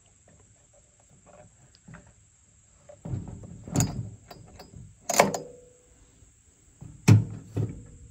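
Homelite XL chainsaw being handled and turned over on a wooden deck: light clicks, then several heavy thunks as it is knocked and set down, one leaving a short ring, the loudest about seven seconds in.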